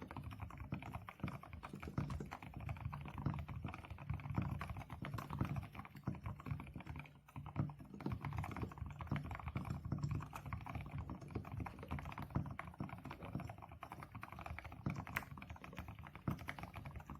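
Continuous fast typing on a mechanical keyboard fitted with HMX Sunset silent linear switches: soft, muted keystrokes with a dull, low bottom-out. It stops abruptly at the end. The uploader likens the sound to chalk writing on a blackboard.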